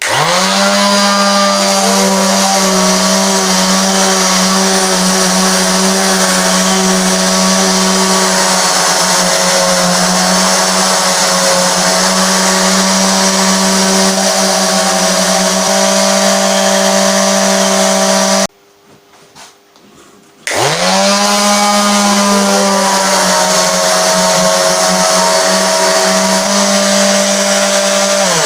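Electric sander working a wooden guitar body, its motor spinning up with a rising whine and then running steadily. It is switched off about two-thirds of the way through, starts and spins up again about two seconds later, and winds down at the end.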